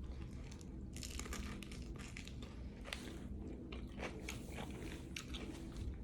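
A person chewing a mouthful of food close to the microphone: wet mouth sounds with many small, sharp clicks scattered throughout.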